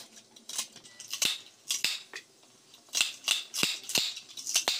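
Red multi-blade kitchen scissors snipping green chillies, a quick irregular run of about a dozen crisp snips with a short pause partway through.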